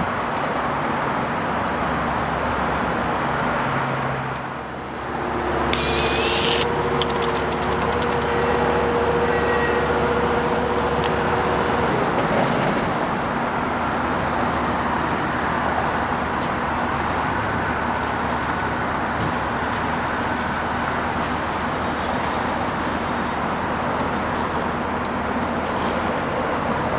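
Baltimore Metro Subway train running into a surface station and slowing to a stop at the platform: a steady rumble of wheels and traction motors, with a two-note whine held for several seconds and short high squeals of the brakes near the middle.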